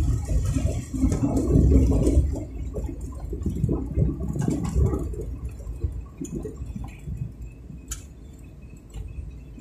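Low, uneven rumble of road and wind noise from a moving vehicle. It is loudest in the first couple of seconds and eases off later, with a single sharp click near the end.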